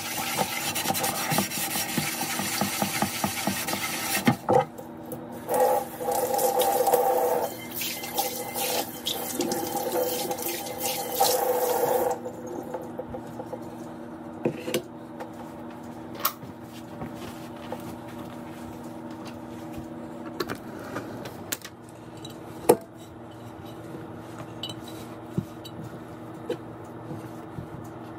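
Kitchen faucet running into a stainless steel sink while a clay pot is rinsed under it; the water stops about twelve seconds in. After that come quieter handling sounds of the wet clay pot, with a few light knocks.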